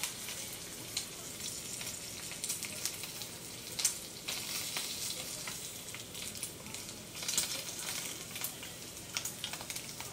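Thin slices of meat sizzling in a frying pan: a steady hiss with scattered pops and clicks.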